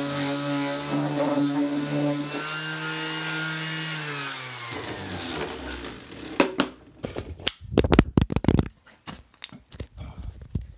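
Electric palm orbital sander running steadily on wood. It drops a little in pitch about two seconds in, then is switched off and winds down to a stop about four and a half seconds in. Then comes a run of loud knocks and clatter, the loudest about eight seconds in, as the phone camera on its tripod is knocked about.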